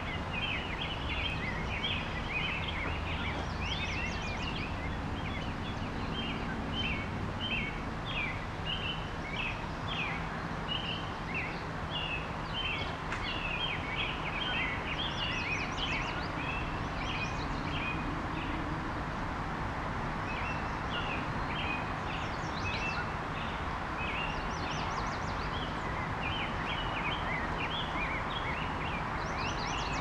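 Steady rush of the St. Croix River's flowing water, with birds chirping over it in quick chattering runs that pause for a few seconds around the middle.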